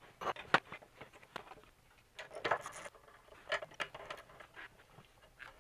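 Irregular clicks, knocks and scraping of hands and a screwdriver working on a Honda GX160 engine as its plastic air cleaner housing is taken off. The sharpest click comes about half a second in.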